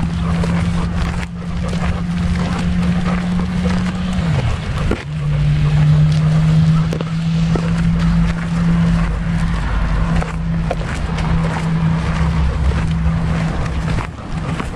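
Rumbling wind and rubbing noise on a camera strapped to a walking dog, with scattered knocks from its movement. Over it runs a steady low hum that dips in pitch and breaks off briefly about four seconds in, then resumes.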